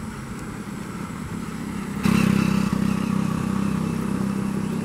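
Motorcycle engine running on the road, growing louder over the first two seconds, then a steady, louder low engine drone from about two seconds in.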